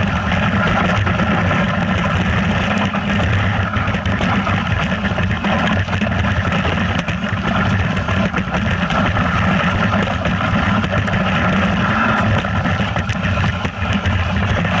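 A vehicle engine running steadily while under way, with a continuous low drone and rushing noise over it.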